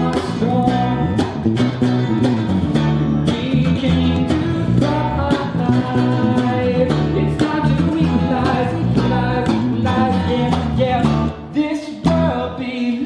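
A band playing a song, with guitar to the fore and little or no clear vocal; the music thins briefly near the end before picking up again.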